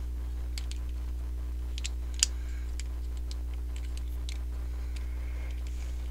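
Light plastic clicks and snaps from the Beast Machines Battle Unicorn action figure's parts as its legs are folded in by hand, scattered and irregular, with one sharper click about two seconds in. A steady low electrical hum underlies them.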